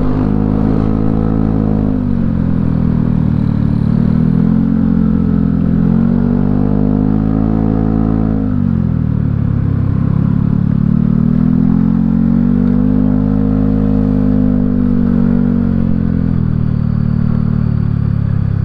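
Honda Scoopy scooter's single-cylinder engine, bored up to 53 mm, running loud through a hollowed-out exhaust while riding up a long climb. The engine note drops three times and climbs back each time as the throttle is eased and reopened.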